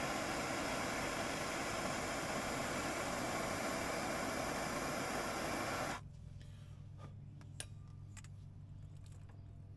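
A steady, loud hiss from the heat tool heating a 6-gauge cable lug to melt solder into it. The hiss cuts off suddenly about six seconds in, leaving a faint low hum and a few light clicks.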